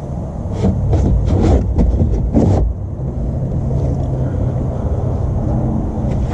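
Engine oil splashing and spattering into a large drain pan as the oil filter comes loose: a run of quick splashes and knocks in the first three seconds, over a steady low hum.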